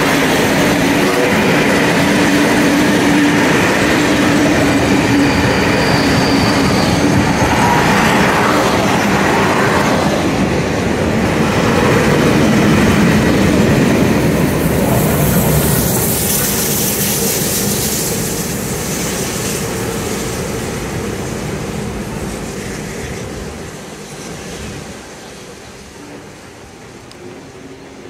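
A train running past on the rails with wheel clatter. It is loud through the middle and then fades away over the last several seconds as it recedes.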